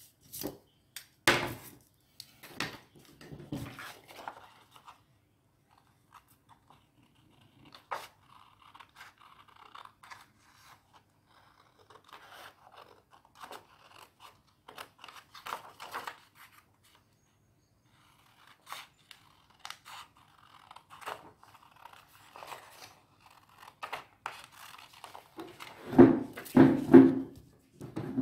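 Craft paper being handled and cut with scissors: intermittent rustling, scraping and snips, with louder rustling and knocks near the end.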